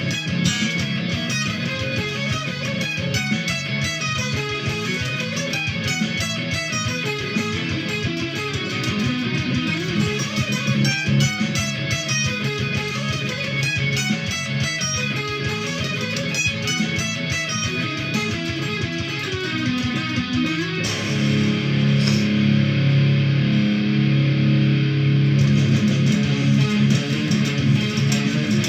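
Electric guitar playing a metal song: quick runs of picked notes, then about two-thirds of the way through it changes to held low chords.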